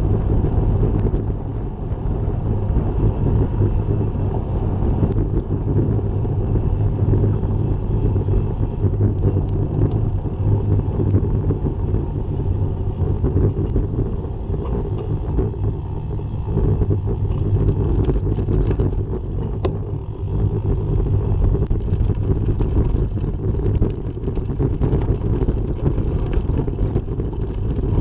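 Wind buffeting the microphone of a camera riding on a moving bicycle: a steady low rumble that swells and dips, with a few light ticks past the middle.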